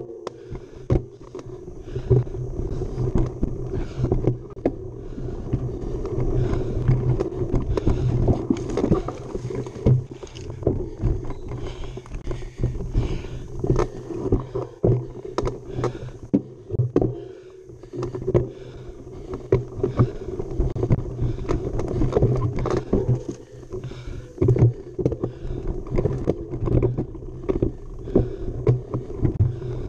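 Mountain bike ridden hard over a rough, rocky trail: a steady rolling drone with frequent sharp knocks and rattles as the bike hits bumps.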